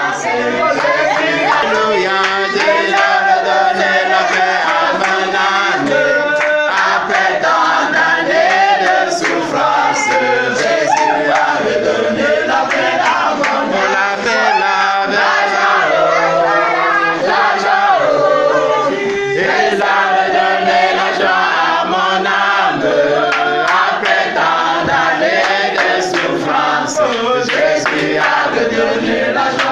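A group of men and women singing a worship song together, continuously and without a break.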